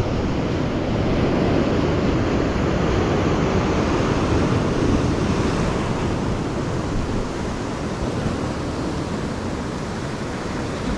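Sea surf washing and foaming over shore rocks: a steady rushing wash that swells and eases gently in level.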